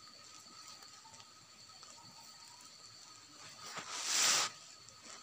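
Faint outdoor ambience with a few steady thin high tones, and a short burst of hiss about four seconds in.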